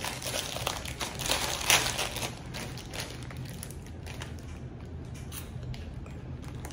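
Thin plastic snack packet crinkling and rustling as it is pulled open and a cheese stick is fished out; the crackling is busiest for the first two or three seconds, then dies down to the odd faint rustle.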